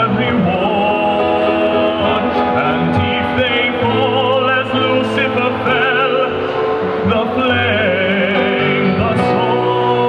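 A man singing a slow musical-theatre ballad with wide vibrato on long held notes, accompanied by piano.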